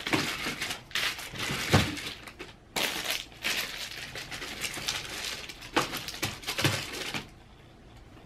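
Packs of false eyelashes being handled and put into a cubby: crinkling and rustling of the packaging with a few knocks. It stops about seven seconds in.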